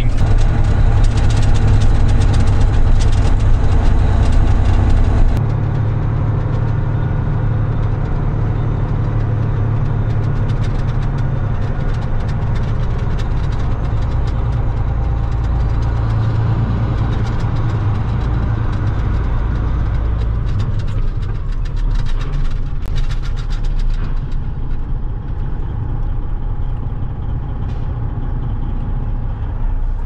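Semi truck's diesel engine running, heard from inside the cab as a steady low drone, while the truck hauls a load of corn. The level drops suddenly about five seconds in, and there are scattered light rattles and clicks later on.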